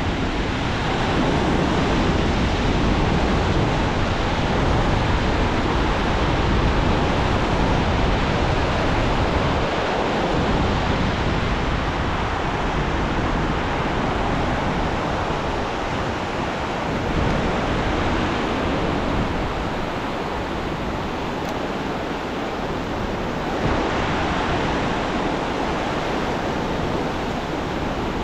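Ocean surf washing onto the beach: a steady rushing noise that slowly swells and eases, mixed with wind.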